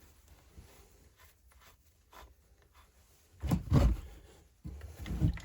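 Handling noise from a chainsaw being worked on by hand while its chain tension is set: light scrapes and ticks, then a cluster of knocks about three and a half seconds in and another near the end.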